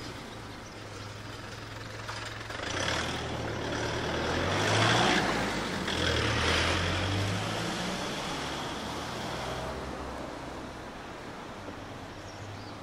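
A small truck's engine idling close by, with a vehicle driving past that grows to its loudest about five seconds in and fades away by about ten seconds.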